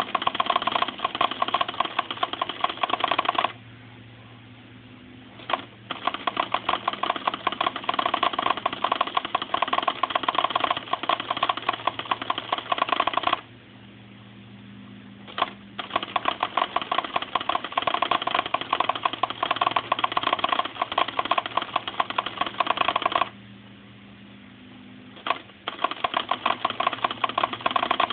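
Casio FA-11 pen printer mechanism printing text: a rapid mechanical rattle of the moving pen assembly in long runs. Three times it pauses for about two seconds, leaving a low steady hum, and each pause ends with a single sharp click before the rattle resumes.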